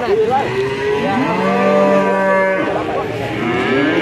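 Cattle mooing, several calls overlapping, with one long low moo held from about a second in to past two and a half seconds.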